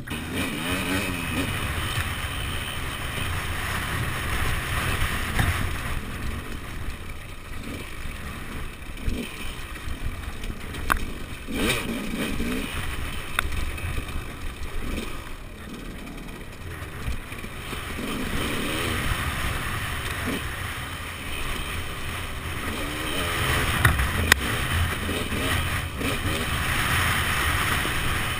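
Enduro dirt bike engine running under load on a rough off-road trail, revving up and down again and again as the rider works the throttle.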